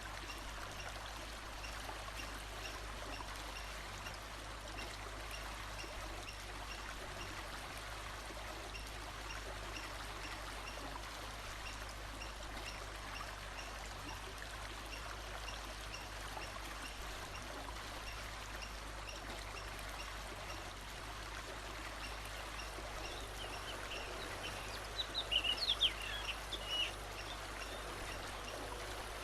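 Steady rush of running water, like a forest stream, with a faint high call repeating evenly in the background. About 25 seconds in, a bird gives a short burst of bright chirps.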